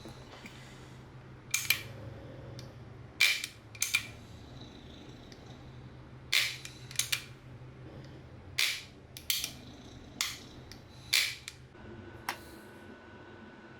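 VFC AR-pattern gas-blowback airsoft rifle firing about nine single shots at an irregular pace, each a sharp crack with the bolt's clatter ringing briefly after it.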